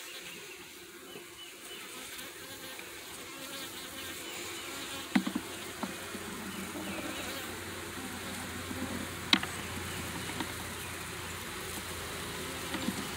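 Honeybees buzzing on the open frames of a nuc hive, a steady hum. A few sharp clicks of wood knocking against the hive box come about five seconds in and again near nine seconds.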